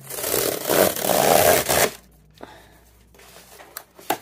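Paper tape being ripped off a cardboard parcel by hand, a loud tearing for about two seconds that stops abruptly. Then quieter handling of the cardboard box, with a sharp tap near the end.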